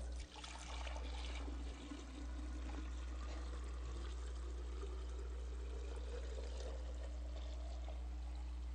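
Liquid poured from two glass pitchers into a glass container: a faint, steady splashing stream, over a steady low electrical hum.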